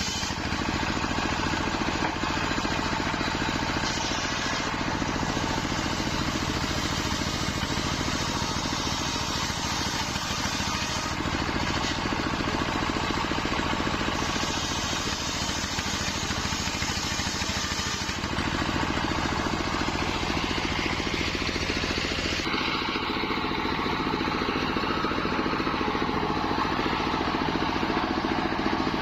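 Wide-bladed circular sawmill saw running steadily and sawing nyampoh wood, with a steady engine-like drone under it. The high hiss drops away about three quarters of the way through.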